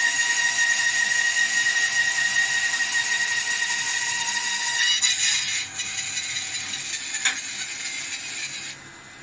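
Bandsaw cutting through a round block of wood: a steady high-pitched whine with a cutting hiss. The sound shifts about halfway through, a sharp click comes a little after that, and near the end the cutting stops, leaving only the quieter hum of the saw running.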